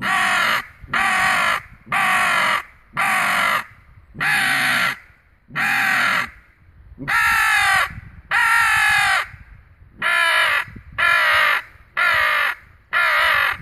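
Little Big Man hooded crow call, a mouth-blown crow call, sounded in a series of twelve harsh caws imitating a hooded crow, each about half a second long with a falling end, two longer drawn-out caws in the middle. The caller varies the pitch by blowing differently and shaping the sound with his hands.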